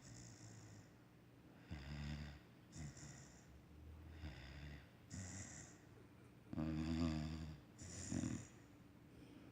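Basset Hound puppy snoring in its sleep: a rasping snore on each breath, a few seconds apart, alternating with a higher, hissing breath. The loudest snore comes about two-thirds of the way through.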